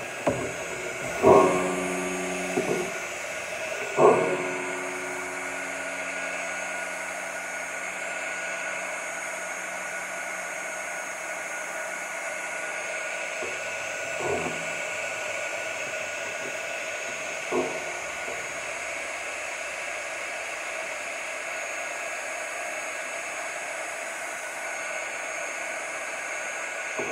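Craft heat tool blowing steadily over wet watercolour on a card, drying the paint. In the first few seconds a few sharp knocks with a short ring sit on top of it; they are the loudest sounds.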